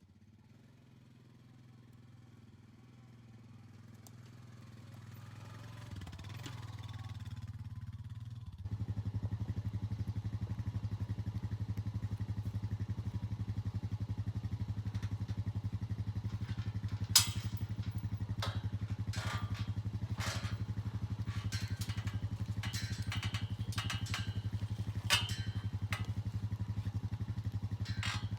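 An engine running at a steady idle. It grows louder over the first several seconds, then jumps louder and stays steady from about nine seconds in, with sharp clattering knocks in the second half.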